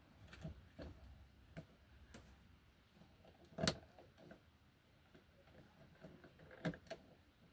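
Scattered light knocks and clicks, the loudest a little past halfway and two more close together near the end.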